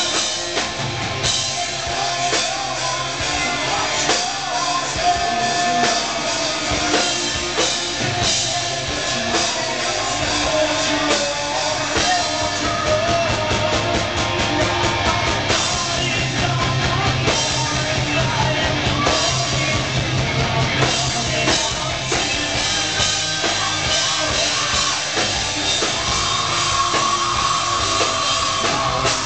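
Rock band playing live: electric guitars and drum kit with a singer's vocals.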